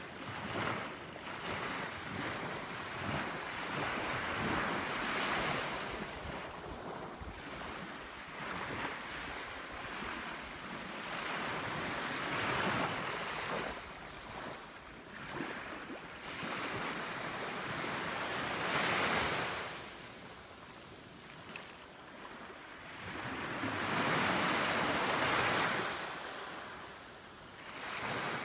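Small surf waves breaking and washing up a sandy beach, swelling and fading every few seconds.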